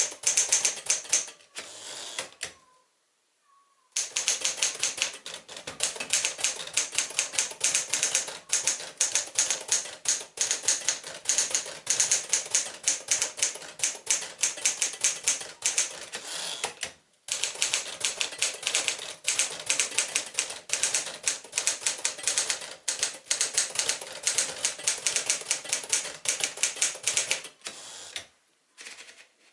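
1954 Smith-Corona Silent-Super manual typewriter being typed on: rapid runs of key strikes, with a pause about three seconds in and a brief one past the middle, stopping shortly before the end.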